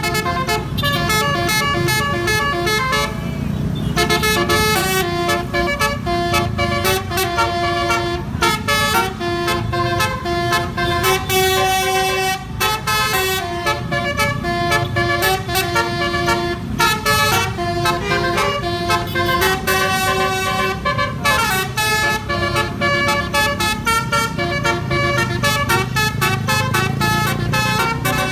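Basuri 'telolet' multi-tone musical bus horn playing a fast tune of short stepped notes, over a steady low rumble.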